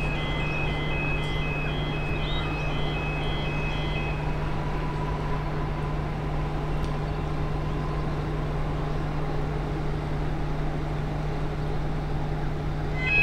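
X'trapolis 100 electric train pulling away from a station platform, with a steady low electric hum and a faint whine midway. Over the first four seconds a rapid, evenly repeating electronic beeping sounds, then stops.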